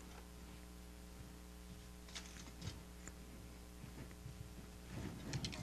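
Quiet hall room tone with a steady low electrical hum, broken by a few faint soft knocks and shuffles, clustered about two seconds in and again near the end.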